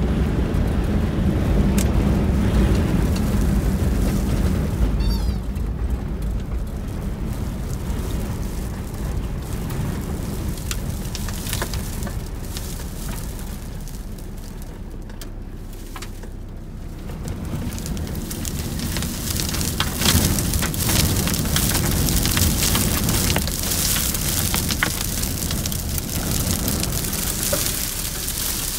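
Dust storm heard from inside a vehicle: wind buffeting the car and sand and grit pelting the windscreen and body. A heavy low rumble fills the first few seconds and eases, and from about eighteen seconds in the pelting grows denser, with many sharp ticks of grit striking the glass.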